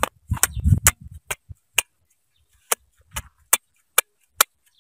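Machete blade chopping and tapping on a small object on hard dirt ground: a series of sharp, irregular knocks, with a low rumble of handling under them in the first second.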